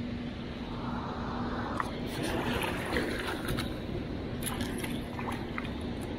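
Water splashing and sloshing, with scattered short clicks and knocks over a steady rushing noise and a faint low hum, busiest from about two seconds in.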